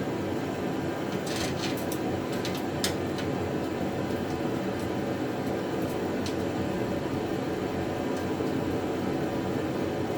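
Steady mechanical hum, with a few light clicks in the first three seconds and another about six seconds in.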